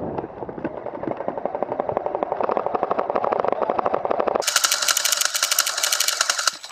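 Airsoft guns firing on full auto, a fast, steady rattle of shots. About four seconds in it cuts abruptly to a brighter, higher-pitched rattle of rapid fire.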